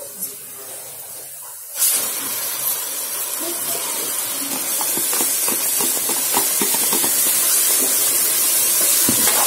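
Crushed tomato hitting hot oil and fried onions in a metal pot: a loud sizzling hiss bursts up about two seconds in and keeps on, growing slowly louder. A spoon scrapes and knocks against the pot as it is stirred.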